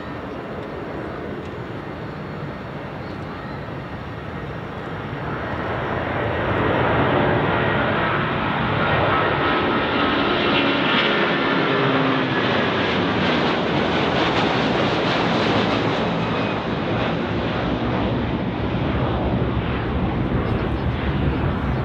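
Airbus A330-300's twin Rolls-Royce Trent 700 turbofans at takeoff thrust. The jet roar grows from a rumble to a loud roar about six seconds in as the airliner lifts off and climbs past, with a ragged crackle through the loudest part.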